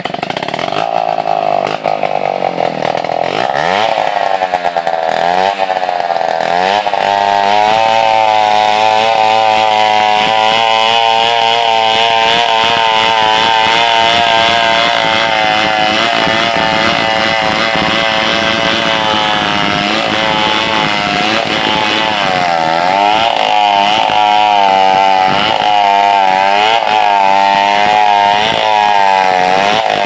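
Big two-stroke chainsaw ripping a log lengthwise into planks. It revs up over the first few seconds and runs at high throttle under load, its pitch wavering and dipping for a few seconds past the middle before climbing again.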